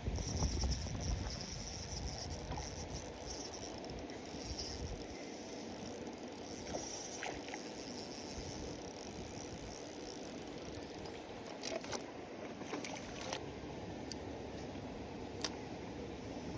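Outdoor ambience of moving water and wind buffeting the microphone, with a handful of sharp clicks in the last few seconds.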